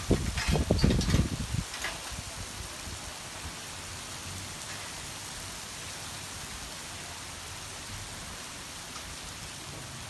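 Steady hiss of rain falling under a stormy sky. Low buffeting on the microphone for the first second and a half, then the rain continues evenly.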